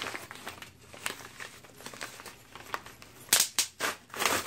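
A package being opened by hand: packaging crinkling and tearing with many small crackles, then a few sharp, loud cracks a little over three seconds in.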